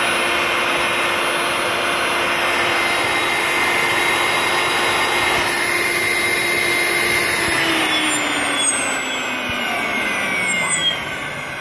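Homemade electric turbo, a turbocharger compressor wheel spun by a GARTT HF6000S1 1220Kv brushless helicopter motor, running at speed with a steady whine and rush of air. About two-thirds of the way in it winds down, the whine falling in pitch and the sound fading near the end.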